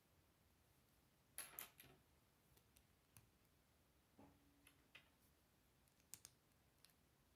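Faint clicks and rattles of plastic Lego plates being handled and pressed together: a quick cluster of clicks about a second and a half in, then scattered single clicks.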